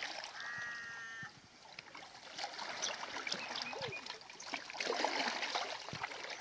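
Canoe paddle pulling through calm water, with splashing and trickling drips as the blade comes through and out during a bow draw stroke. A short, steady high-pitched call sounds in the first second.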